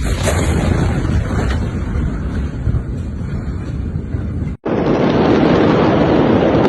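Steady rushing noise of wind on a phone microphone. About four and a half seconds in it cuts off abruptly and gives way to a louder, brighter rush.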